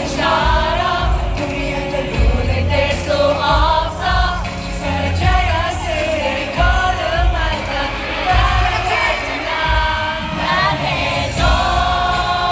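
A male pop vocal group singing live over a backing track with a steady beat, with crowd voices mixed in.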